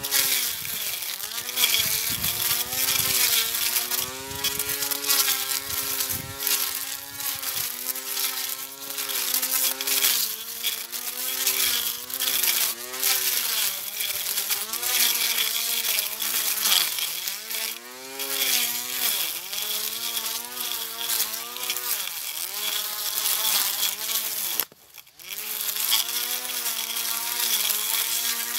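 Portable electric grass cutter running and cutting grass: a high buzzing motor whine whose pitch dips and recovers as it meets the grass, over a steady hiss from the cutting head. It cuts out for a moment a few seconds before the end, then runs again.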